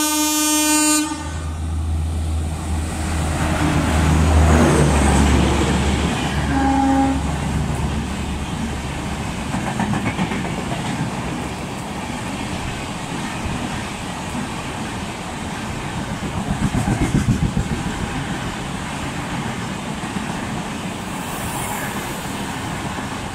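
Express passenger train passing through a station at speed on an electrified line: the electric locomotive's horn cuts off about a second in, the locomotive goes by with a heavy low hum, then the coaches rush past with a steady rumble and the clickety-clack of their wheels over the rail joints.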